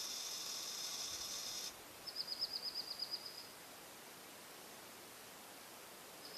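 A steady high-pitched hiss cuts off suddenly a little under two seconds in. Then a small bird sings one rapid, even trill of about a dozen high notes.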